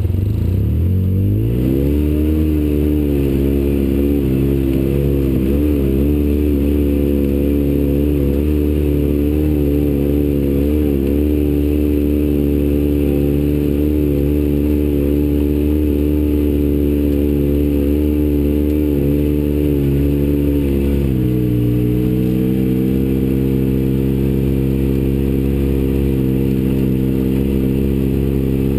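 Off-road vehicle's engine revving up over the first two seconds, then held at steady revs with small rises and dips while driving over a rocky trail. About 21 seconds in, the revs drop slightly and stay level.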